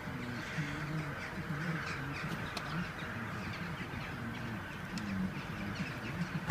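A flock of crows cawing, many overlapping calls without a break.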